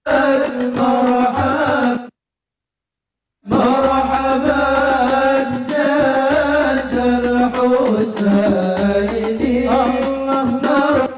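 Devotional chanting of the Arabic nasheed kind, voices singing together over a steady low drone or drum. The sound cuts out completely about two seconds in and comes back a second and a half later.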